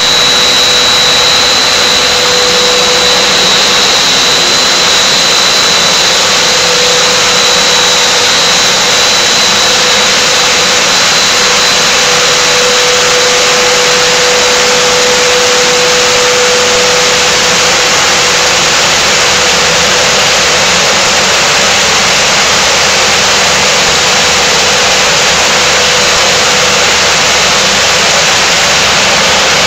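Hard-PVC extrusion and pelletizing line running: a loud, even hiss-like machine noise with a steady lower hum and a high whine that fades about ten seconds in.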